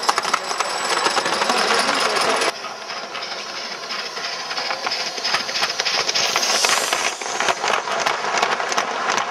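Gauge 1 live-steam model locomotives running, with steam hissing and a dense clicking and rattling of wheels and wagons on the track. The sound drops suddenly in level about two and a half seconds in, and a short burst of hiss comes near the middle.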